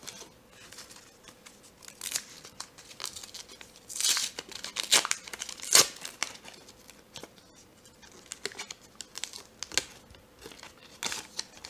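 Foil wrapper of a trading-card pack being torn open and crinkled by hand: a run of irregular crackling tears, loudest in the middle.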